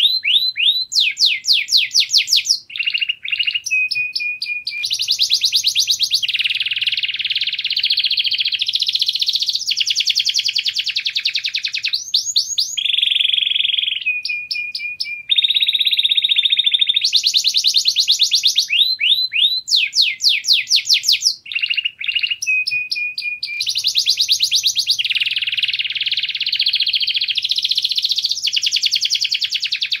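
White domestic canary singing a continuous, high-pitched song of rapid trills, fast rising sweeps and buzzy rolls, switching from one phrase to the next every second or two.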